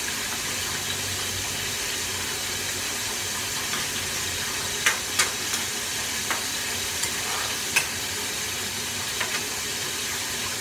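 Food sizzling steadily in a frying pan, with a cooking utensil knocking and scraping against the pan several times around the middle as it is stirred.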